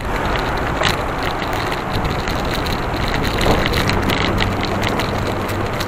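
Road noise from a moving vehicle carrying the camera: wind rushing over the microphone and tyre and traffic noise, with a steady low engine hum that grows clearer about halfway through.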